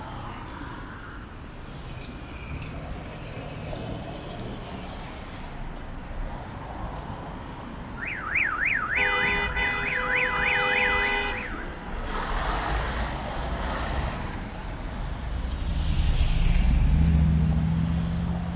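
Car alarm warbling rapidly up and down for about three and a half seconds, with a steady two-note horn sounding over its last two seconds. City traffic runs throughout, and a heavy vehicle's engine passes close near the end, louder than the alarm.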